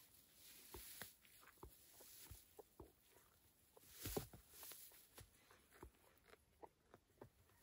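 Faint, irregular crunches and rustles of hay and snow as a Highland cattle calf feeds, with a louder rustle about four seconds in.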